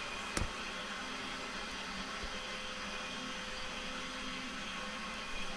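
Steady hiss of background noise, with one sharp click about half a second in.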